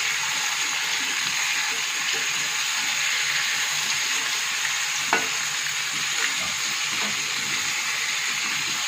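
Pumpkin pieces sizzling steadily as they fry in oil in a steel kadhai, stirred with a perforated metal spoon that scrapes against the pan. There is one sharp clink of spoon on pan about five seconds in.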